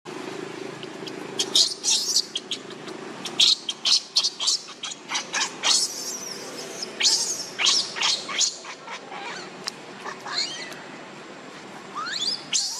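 Infant macaque crying in distress: a rapid series of short, high-pitched squeals and screams, some sliding up and down in pitch, starting about a second and a half in.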